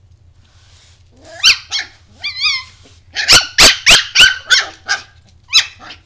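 A young puppy's high-pitched yapping barks, starting about a second in, with one wavering yelp among them and a fast run of barks in the middle.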